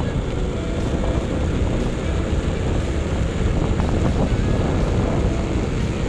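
Motorcycle running at a steady riding speed on a dirt track, with engine, tyre and wind noise.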